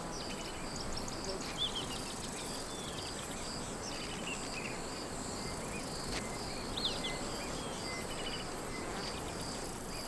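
Bush ambience: insects chirring in a steady, regular pulse, with a few short, high bird chirps now and then.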